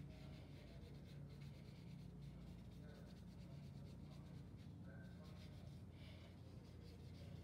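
Faint scratchy strokes of a paintbrush brushing paint onto paper, over a low steady hum.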